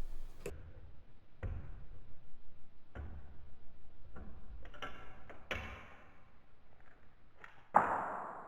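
Screwdriver and small screw fumbling against the Facit ESA-0 calculator's casing: scattered light clicks and taps, with short scraping bits in between. Near the end there is one louder sharp metallic clink that rings briefly, as the screw fails to catch.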